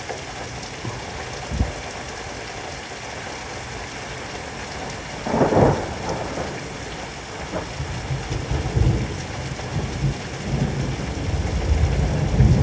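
Heavy thunderstorm rain falling steadily, with a loud burst of thunder about five seconds in, then low thunder rumbling through the second half.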